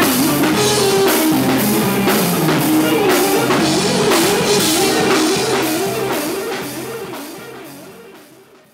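Live R&B band playing, with drum kit and guitar under a held, wavering note; the music fades out over the last few seconds.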